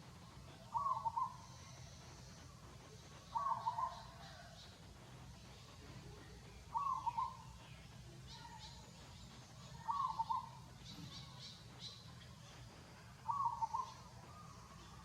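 A bird calling five times at an even pace, about every three seconds, each call short and clear, with faint higher chirps in the background.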